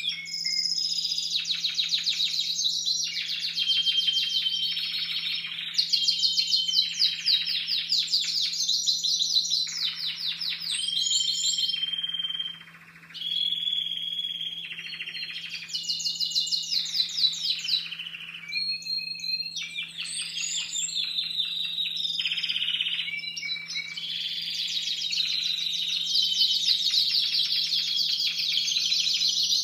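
Young Timbrado Español song canaries singing: fast trills of rapidly repeated notes alternate with held whistled notes, with a short break about halfway through. Their repertoire is still being formed in contest-cage training. A steady low hum runs underneath.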